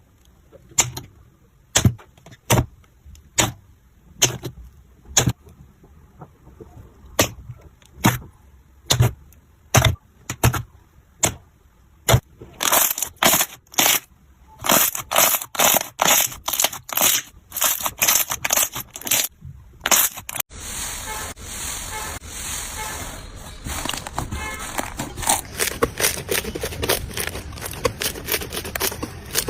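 Slime being pressed and squished, giving sharp pops and crackling clicks, at first one every half second to a second, then in quicker clusters. About two-thirds of the way through, the sound changes abruptly to a steadier, denser crackle.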